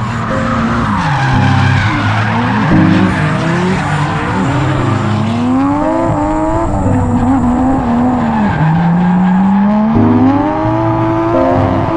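Drift car's engine revving hard, its pitch climbing and falling again and again as the car slides, with the tyres squealing and skidding on tarmac. Heard from a camera clamped to the car's boot lid.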